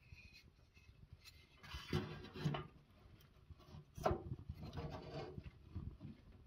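Split firewood logs being pushed into the firebox of a small wood-burning tent stove: wood scraping against wood and the stove, with a few knocks, the sharpest about four seconds in.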